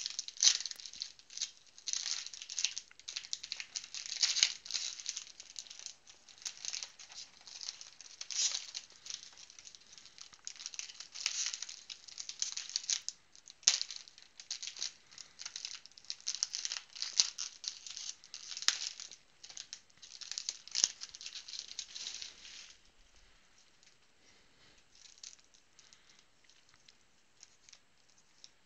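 Plastic wrapper of a trading-card rack pack crinkling and crackling as it is torn open and handled, in a rapid run of sharp crackles that stops about 23 seconds in. After that only faint light ticks remain.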